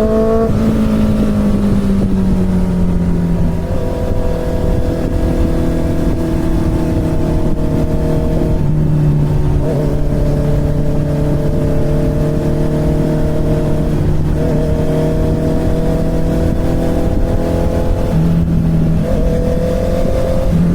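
Inline-four motorcycle engine running under way, its pitch creeping up and then stepping at about four, nine, fourteen and nineteen seconds in, with steady wind and road rumble underneath.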